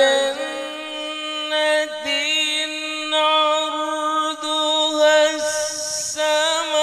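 A man's voice reciting Quran verses in the melodic tilawah style, holding long notes with small wavering ornaments, amplified through a microphone. He breaks off once, a little past halfway, for a breath, then carries on.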